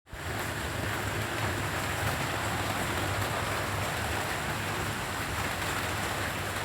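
Steady rain falling, an even continuous hiss with a low steady hum underneath.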